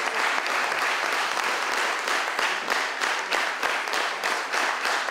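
Large audience applauding, dense sustained clapping with no break.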